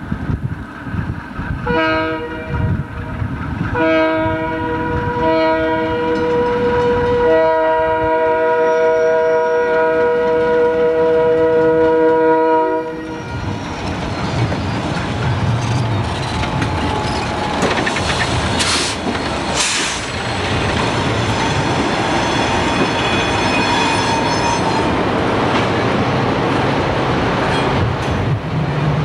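Burlington Northern GE C30-7 diesel locomotive sounding its multi-note air horn in a series of blasts, the last held about six seconds. The locomotives and train then pass close by, with engine noise and wheels clicking over the rail joints.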